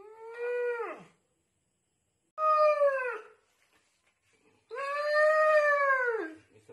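A dog poisoned by a toad howling in distress: three long cries, each rising then falling in pitch, the last the longest.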